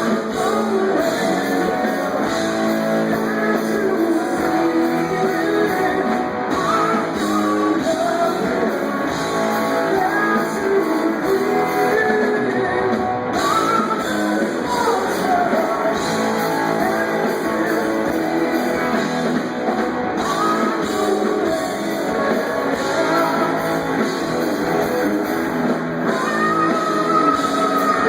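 Rock band playing live and loud, electric guitar to the fore, with bending guitar or vocal lines over a steady full band.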